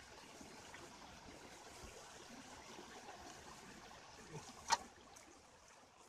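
Faint, steady trickle of a shallow stream running over rocks, with one sharp click about three quarters of the way through.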